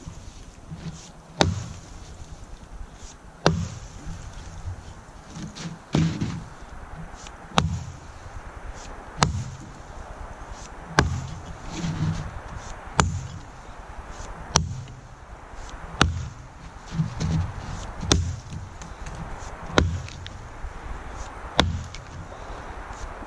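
Cruiser axe chopping into a downed log, bucking it by hand: a steady series of sharp blows, about one every one and a half to two seconds, each with a short woody thud.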